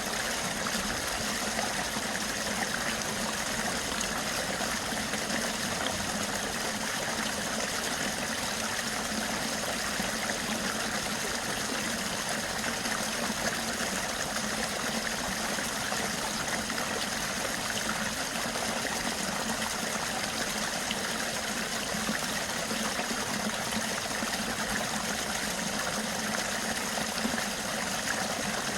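Flowing water running in a steady, even rush with no let-up.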